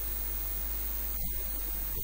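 Steady hiss with a low electrical mains hum underneath, the background noise of the recording's microphone line.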